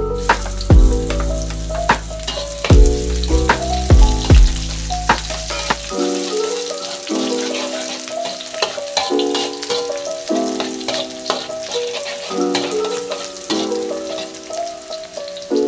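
Sliced shallots sizzling in hot oil in an aluminium wok as they hit the oil and are stirred with a slotted metal spatula. Background music plays over it.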